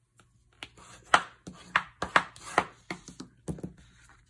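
Cardstock card base being folded along its score line and the fold pressed flat on the table: about six short, sharp swipes and taps, the first of them the loudest.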